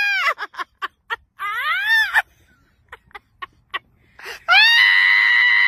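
A high-pitched voice wailing: a falling cry at the start, a rising-and-falling cry around two seconds in, and a long, steady held cry near the end, with short sharp clicks in between.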